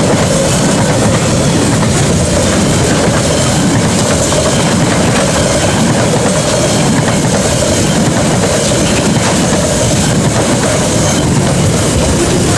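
KiwiRail freight train behind a DL class diesel locomotive rolling past close by: a loud, steady rumble and clatter of wagon wheels on the rails, unchanging throughout.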